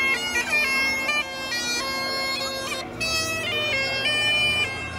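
Bagpipes playing a melody over a steady drone, the notes stepping up and down several times a second.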